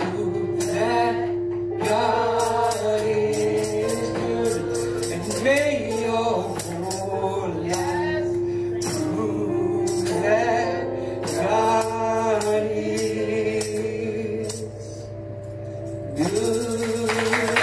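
Live gospel music: singing over held chords, with percussion such as tambourine keeping a steady beat.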